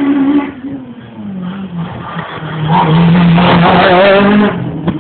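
Rally car engine revving hard as the car passes close by, loudest for a couple of seconds around the middle, with its pitch shifting as it comes through. A short sharp crack near the end.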